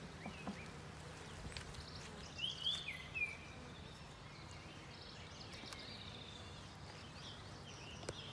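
Honeybees from an open package making a steady low hum, with a songbird chirping a few quick notes about two and a half seconds in and fainter bird calls later.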